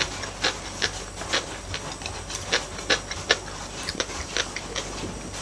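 Close-miked chewing and mouth sounds of someone eating rice and side dishes: irregular sharp clicks, about two or three a second, over the steady hiss of rain.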